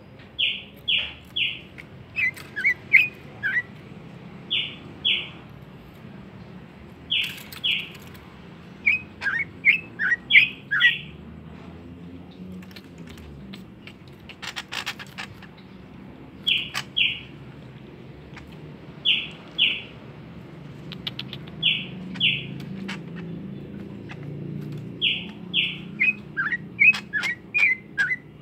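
Pet bird calling: short chirps in pairs and threes, mixed with quick downward-sliding notes, repeated every few seconds.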